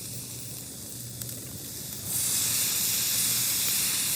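Food frying in a hot pan: a low sizzle with a few small pops, then about two seconds in a loud, steady sizzling hiss starts suddenly.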